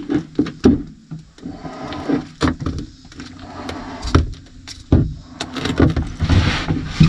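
Irregular knocks, taps and scuffs against the fiberglass and wood of a boat hull as a person shifts and handles a plastic cup in a cramped compartment.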